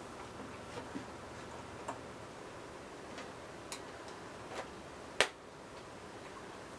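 Scattered small plastic clicks and taps as a toy quadcopter and its plastic radio controller are handled, about seven in all, the loudest a sharp click about five seconds in.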